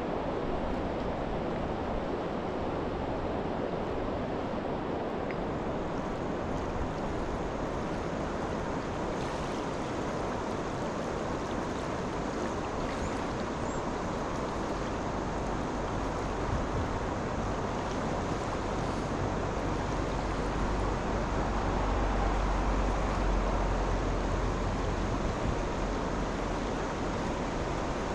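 Steady rush of flowing river water, with a low rumble swelling about two-thirds of the way through.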